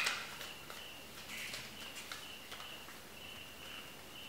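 Faint rustling and soft clicks of paper pages as a small printed booklet is handled and leafed through. A faint high tone pulses on and off behind them.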